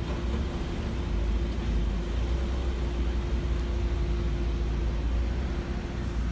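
Grey sedan driving slowly off across wet asphalt: a steady low rumble with a constant hum and a light hiss.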